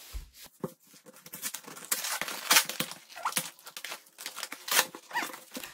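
Cardboard parcel box being torn open by hand: irregular ripping and rustling strokes of cardboard, with a few louder rips.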